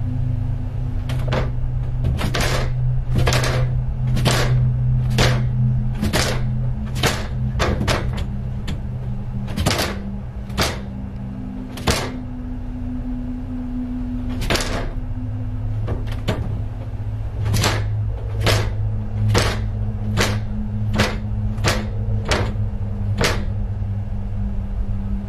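Ceiling attic hatch knocking and rattling in its frame: a long run of sharp knocks, irregular at roughly one a second, some in quick pairs, over a steady low hum. The homeowner was unsure whether wind suction in the attic causes it.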